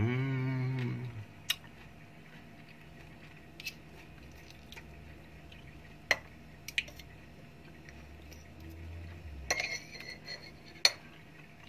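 Metal fork and knife clicking and scraping against a ceramic plate as a salted capelin is handled, with single sharp clinks spread out and a quick cluster near the end. During the first second, a low drawn-out vocal sound rises and then falls, louder than the clinks.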